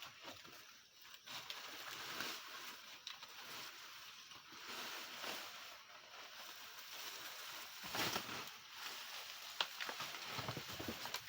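Dry maize stalks rustling and crackling as they are handled, with a louder crackle about eight seconds in and a sharp snap shortly after.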